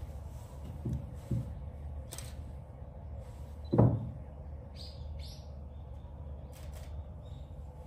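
Sumatran tiger gnawing a bone: a few dull crunching thumps, the loudest about four seconds in, over a steady low hum.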